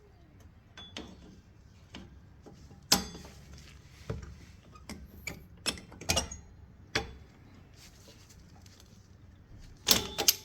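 Metal tools clicking and clinking against rear drum brake hardware as a vise grip works the return spring off the brake shoes: sharp, irregular taps, the loudest about three seconds in and a quick cluster near the end.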